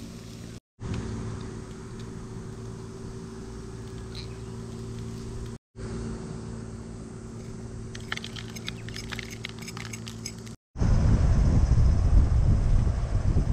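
A steady low hum with several fixed pitches, broken by abrupt cuts. About eight seconds in, a run of quick scraping clicks as a folding knife scrapes charred spice off a grilled block of meat held in metal tongs. Near the end a much louder low rushing noise takes over.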